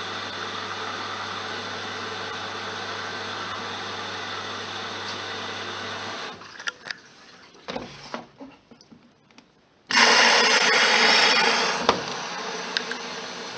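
Privileg 3020 washing machine, early in a 95 °C cotton cycle: a steady rush with a low mains hum cuts out about six seconds in. A few clicks and near quiet follow. Then a louder rush starts suddenly, eases after about two seconds and settles to a steady, lower noise.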